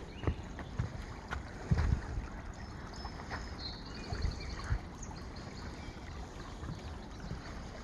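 Footsteps on a wooden boardwalk, irregular thuds, over a steady wash of a shallow woodland stream. A short, rapid high bird trill comes about halfway through.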